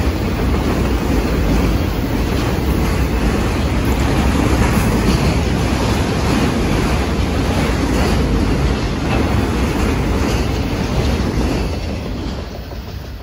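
Loaded autorack freight cars rolling past on steel wheels and rail, a steady heavy rumble that dies away near the end as the last car passes.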